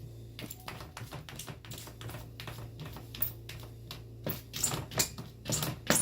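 Cat clawing and scratching inside a covered plastic litter box: quick, irregular scratches and clicks of claws on the plastic, louder and more frequent in the last two seconds.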